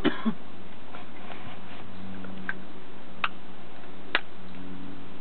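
A person's cough from inhaling blunt smoke trails off right at the start, then a steady low hum with three faint, sharp clicks about a second apart.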